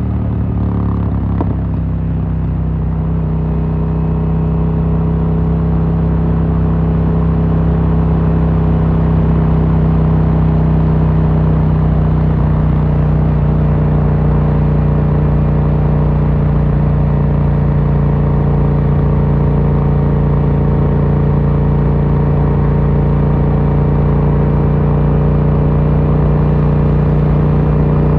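Yamaha MT-07's 689 cc parallel-twin engine through an Akrapovic carbon full exhaust, its pitch dropping briefly at the start and then holding at a steady engine speed.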